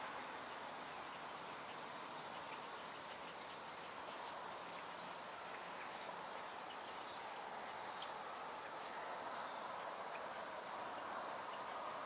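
Steady outdoor ambient hiss, with a few faint, short high chirps near the end.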